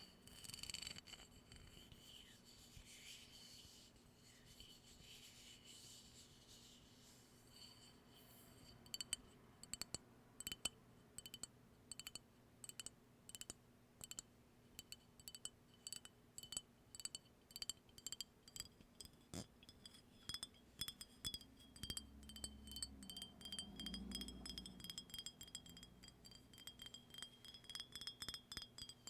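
Faint high ringing, like a chime, held steady throughout, with light taps or clinks a few times a second starting about eight seconds in.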